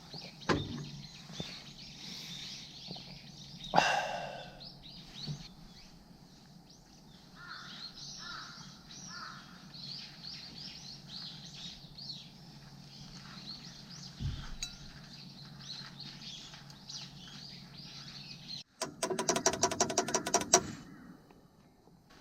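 Wild birds chirping and calling, with one loud harsh call about four seconds in. Near the end comes a loud, rapid rattling sound lasting about a second and a half.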